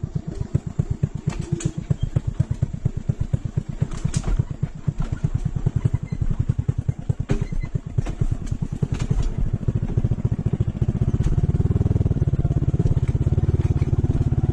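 Motorcycle engine running with a rapid, even beat that grows steadier and a little louder about eleven seconds in. A few sharp clicks or knocks sound over it.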